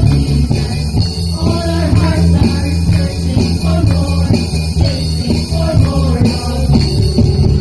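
A band playing a song with a singer, over a strong, loud bass line.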